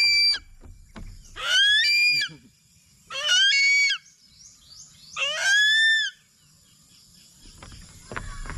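Eagle screaming: three loud, high-pitched calls about two seconds apart, each rising and then levelling off, with the tail end of another call at the very start.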